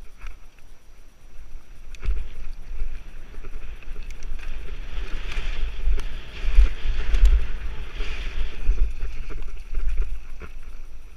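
Wind buffeting the microphone over the rumble of mountain bike tyres rolling fast on a dirt trail, with scattered knocks and rattles from the bike over bumps. It builds about two seconds in, is loudest a little past the middle and eases near the end.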